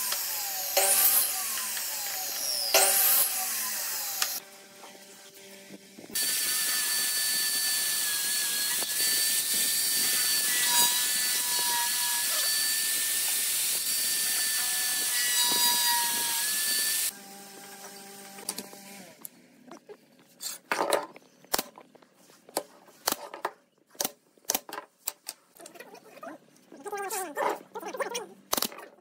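A mitre saw cuts pine: the blade spins up and winds down with falling whines, with several sharp strikes of the blade through the wood in the first few seconds. Then a corded drill with a long bit bores steadily into the end of a pine block for about ten seconds. The rest is a run of scattered sharp clicks and knocks.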